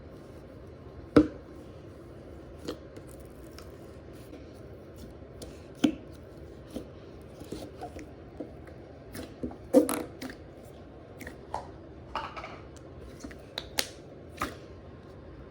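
Slime being worked by hand: irregular sticky clicks and pops, about a dozen and a half, loudest about a second in and in a cluster near ten seconds.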